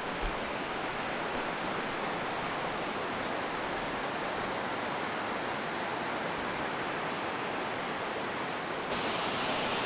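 Steady rushing of a waterfall's falling water, an even hiss with no pattern; it turns a little louder and brighter near the end.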